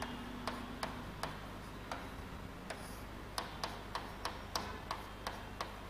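Light, sharp clicks in a quiet room, about two or three a second at uneven spacing, over a faint steady background hum.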